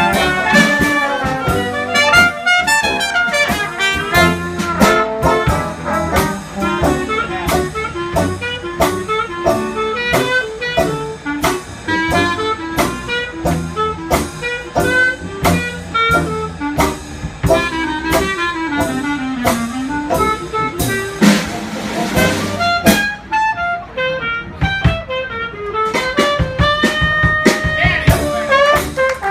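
Live jazz band with brass playing an upbeat tune with a steady beat of about two a second.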